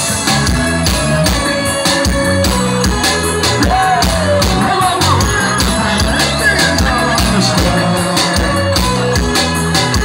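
Live band music over a stage PA: a singing voice over drums with a steady beat.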